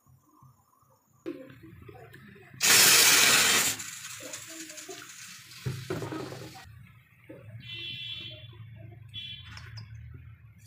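Cooking oil being poured into a black frying pan, with a low steady hum beneath it. Earlier, about three seconds in, comes a loud hiss lasting about a second.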